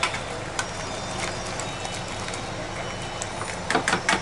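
Wire whisk stirring a thick yogurt-and-spice marinade in a plastic bowl, its wires clicking against the bowl now and then, with a quick run of clicks near the end. A steady background noise runs underneath.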